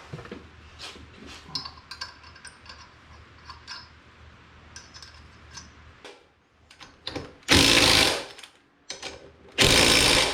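Impact wrench run in two short bursts near the end, about a second and then under a second long, zipping wheel lug nuts on; before that, light clinks and knocks of parts being handled.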